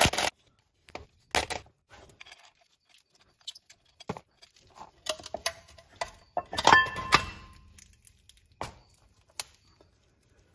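Scattered clicks and clinks of metal tools and bolts being handled, with a louder ringing metal clank about seven seconds in.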